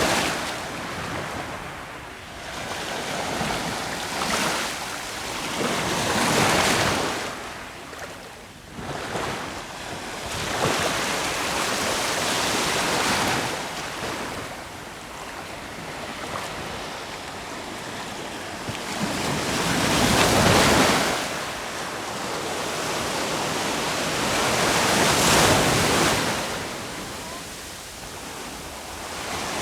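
Sea waves breaking on the shore in irregular surges a few seconds apart, each swelling up and washing back.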